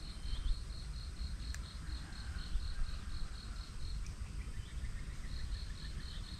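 An insect chirping in an even pulse, about five high chirps a second, pausing for a second or so past the middle and then resuming, over a steady low rumble. One sharp click comes about a second and a half in.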